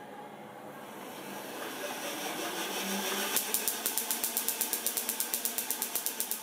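Wimshurst machine's discs whirring up to speed, then a rapid, even crackle of small sparks snapping across the spark gap, about nine a second, stopping suddenly near the end. With the Leyden jars' outer plates disconnected, the jars store little charge, so the sparks come fast and weak.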